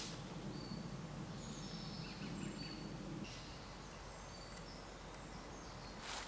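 Faint woodland ambience: small birds singing short, high whistled chirps through the first few seconds, over a low steady hum that stops about three seconds in. A brief rustle comes near the end.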